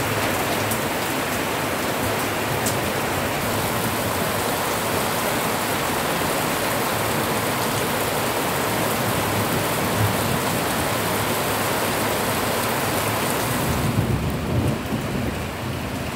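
Heavy monsoon rain pouring down in a steady, dense hiss. About 14 seconds in, the hiss thins and a lower, uneven rumble takes over.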